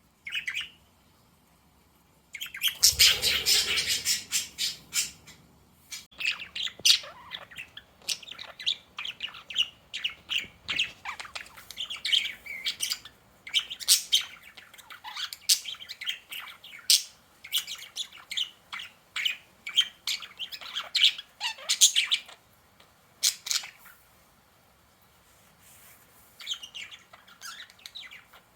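Pet budgerigars chirping and chattering in quick, irregular runs of short calls, loudest and harshest about three seconds in, with quiet pauses near the start and about three-quarters of the way through.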